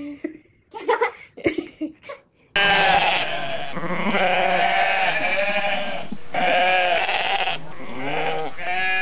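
Several sheep bleating loudly from about two and a half seconds in, long wavering calls that overlap one another. Before that come a few brief, quieter sounds.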